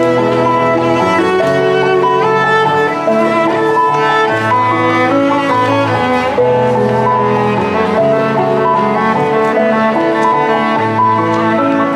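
Bowed string music, cello and violin, playing a slow melody of held notes over sustained low bass notes.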